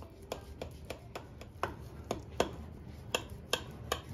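Kitchen knife cutting a baked potato casserole into portions in a glass baking dish: a string of irregular sharp clicks as the blade meets the glass. The loudest come about halfway through and near the end.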